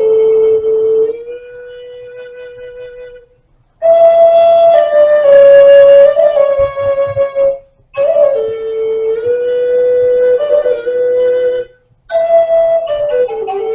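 Native American flute playing a slow solo melody of long held notes, breathy in tone, in phrases with short pauses for breath between them.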